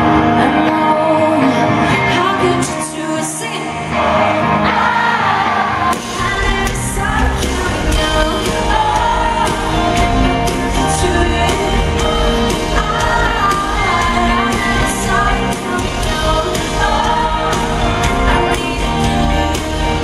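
Live pop-rock band: a woman singing over keyboard and guitars. About six seconds in the bass and drums come in and the full band plays on under the vocal.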